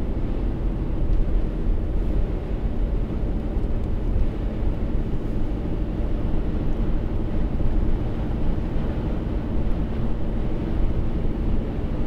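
Steady engine and tyre noise inside a moving car's cabin, a constant low rumble.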